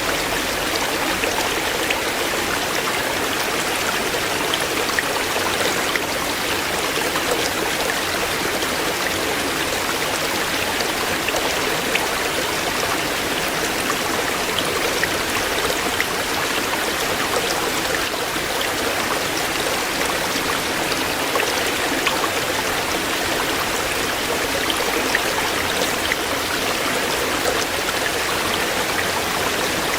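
Shallow stream flowing steadily over stones, an even rushing babble with small splashes and trickles.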